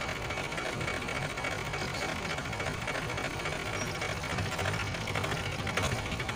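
A vehicle engine idling with a fast, even rattle and a low rumble.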